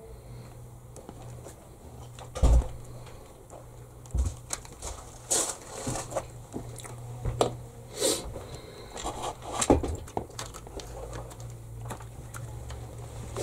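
Hands working on an FTX Outlaw RC buggy's chassis: scattered clicks, knocks and scrapes as parts are handled and fitted. The loudest is a knock about two and a half seconds in.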